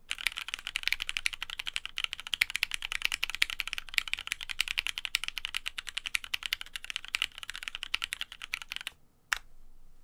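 Fast typing on a Helix Lab Aaru TKL custom mechanical keyboard with lubed Cherry MX Black linear switches and PBT keycaps, on a desk mat: a dense, rapid run of keystrokes that stops about nine seconds in, followed by one separate keystroke.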